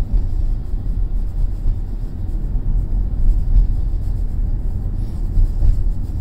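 Road and tyre noise heard inside a Tesla electric car's cabin while driving: a steady low rumble with no engine note.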